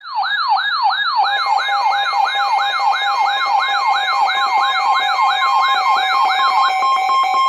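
Emergency Alert System alert tones. A siren-like falling sweep repeats about two and a half times a second, and after about a second steady alert tones join in. The sweeps stop near the end while the steady tones carry on.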